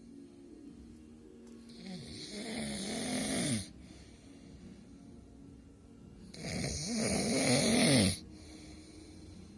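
Loud snoring: two long snores, each about one and a half to two seconds, about four seconds apart, with their pitch wavering up and down, and quieter breathing between them.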